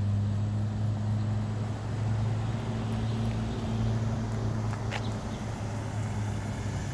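A car engine running steadily, a low even hum.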